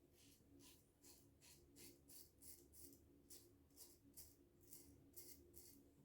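Mühle R89 double-edge safety razor with a Feather blade scraping through lathered stubble in short, quick, faint strokes, about three a second.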